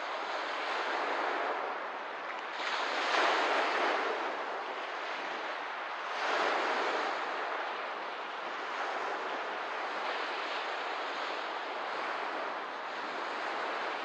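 Small waves washing onto a lakeshore in a steady hiss, with two louder surges about three and six and a half seconds in.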